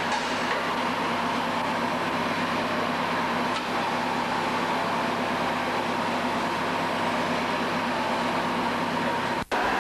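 Industrial machinery running steadily, a constant hum with an even hiss. Near the end it drops out for an instant and picks up again with a slightly different tone.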